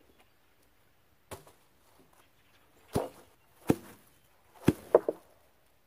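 A series of six sharp knocks at uneven intervals, the last three close together near the end.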